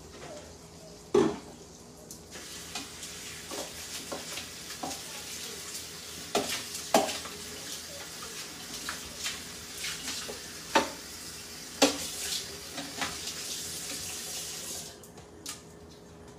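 A kitchen tap running into a sink, switched on about two seconds in and shut off shortly before the end, with dishes and a pan knocking and clattering under the water. There is a sharp knock about a second in, before the water starts.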